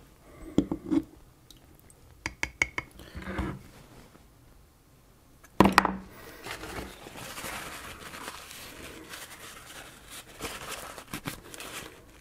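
Small metal clicks of a tool against a ceramic mug, then a single sharp knock about five and a half seconds in. After that, a paper towel rustles as a small metal part is rubbed clean.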